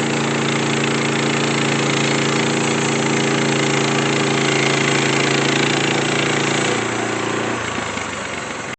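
Norwood MN27 portable sawmill running, its engine holding a steady note under a loud hiss. Near the end the engine note drops as it slows, and then the sound cuts off suddenly.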